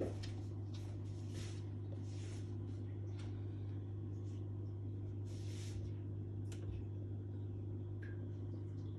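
Steady low hum of running aquarium equipment, with soft hissing water noise rising and falling every second or so.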